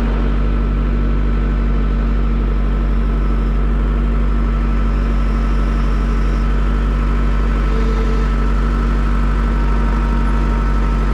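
An engine running steadily at a constant speed, with a strong low rumble and a steady hum.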